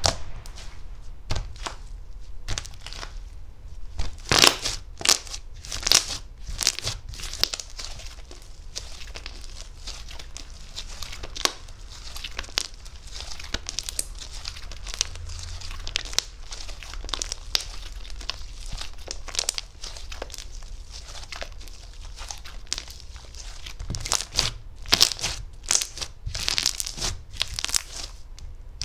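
Slime being squeezed and stretched by hand: a run of sharp sticky pops and clicks over a steady crackling, busier near the start and near the end.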